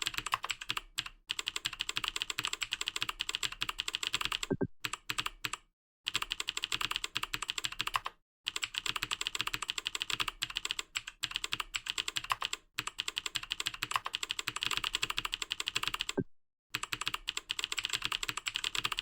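Fast typing on a computer keyboard: rapid key clicks in long runs, broken by several short pauses of under a second.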